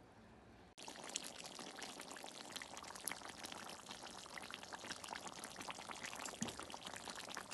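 Chicken and vegetables cooking in a pan: a faint crackling hiss with many small pops, starting about a second in.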